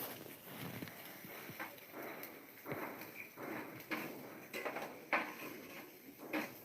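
Close-miked chewing and mouth sounds of someone eating, with irregular crunches and smacks.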